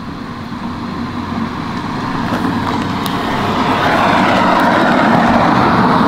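A passing vehicle: a rushing noise that swells over several seconds and fades away just after its loudest point.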